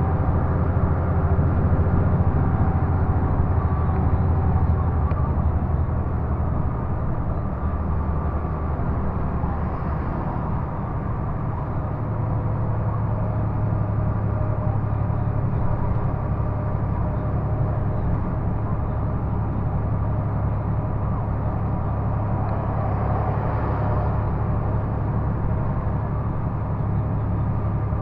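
Volvo truck's diesel engine droning steadily inside the cab while driving at highway speed; its note shifts and dips slightly about a fifth of the way in, then holds steady for the rest.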